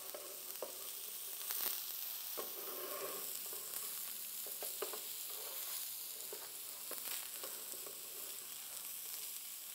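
Chicken mince patties sizzling steadily in a little oil on a non-stick tawa as they are turned to brown the other side, with a few short clicks and scrapes of a plastic spatula on the pan.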